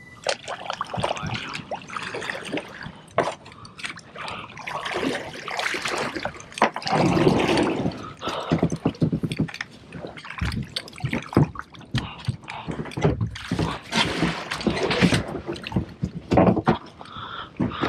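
Water splashing and sloshing in an uneven, irregular rhythm.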